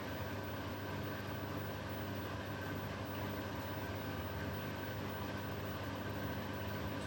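Beko WTK104121W washing machine running with a steady hum and no rise in pitch: it is not ramping up into its intermediate spin, which it cancels.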